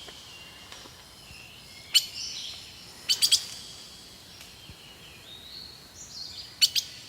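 Wild birds calling: a sharp high chirp about two seconds in, a quick run of three just after three seconds, and a pair near the end, with thin high whistled notes that waver and step in pitch between them.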